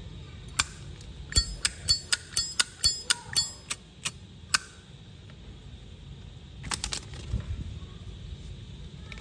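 Zippo lighter being worked by hand: a quick series of about ten sharp metal clicks over the first few seconds, then a few more about seven seconds in.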